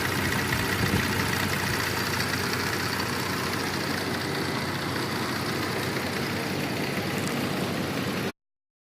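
2004 Cadillac SRX's 3.6-litre V6 idling steadily, running smoothly for now: the intermittent injector misfire, which the mechanic suspects comes from a loose contact in the injector connector, is not showing. The sound stops abruptly near the end.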